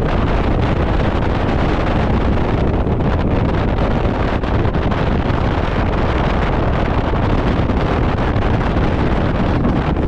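Steady wind rushing over the microphone of a bass boat running at speed, with the boat's engine and water noise underneath.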